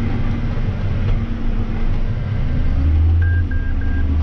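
John Deere 6175M tractor's six-cylinder diesel engine droning steadily inside the cab while pulling a planter across the field; the low hum grows stronger about three seconds in. Three short electronic beeps sound near the end.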